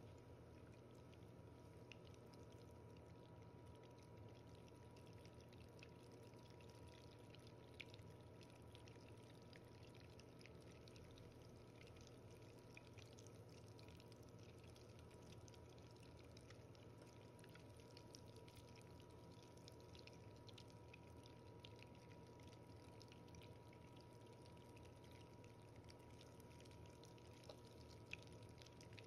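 Butter sizzling faintly with fine crackles as it browns in a stainless steel bowl: its water has cooked off, so the boiling bubbling has died down and foam is rising, the stage where it starts to brown.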